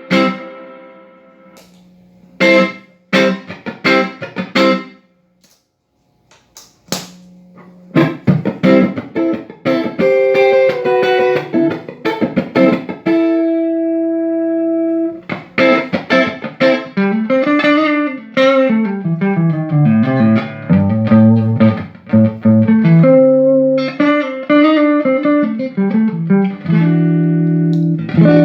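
Electric guitar played through a Fender '65 Deluxe Reverb reissue tube amp, freshly fitted with new power tubes and rebiased. A few struck chords, a pause of a few seconds, then running single-note lines and chords, with one chord left ringing for about two seconds midway.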